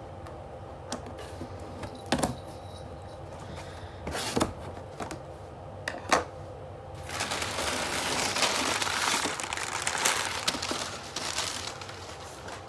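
A delivered parcel being unpacked by hand: a few separate sharp clicks and knocks of handling, then from about seven seconds in several seconds of loud crinkling and rustling of packing material.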